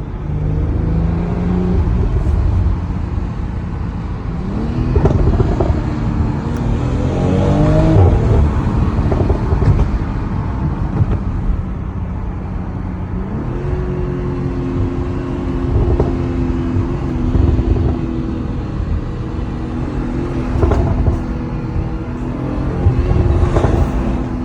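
BMW X3 M40i's turbocharged 3.0-litre inline-six through its stock exhaust, revving. The pitch climbs a few seconds in and again around eight seconds, then holds steady at a higher pitch from about halfway through, with a few short blips.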